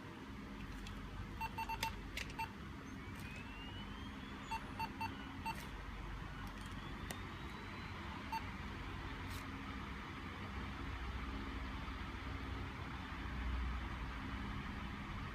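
Short electronic beeps, some in quick groups of three, with a few rising whistling glides over a steady low hum and hiss.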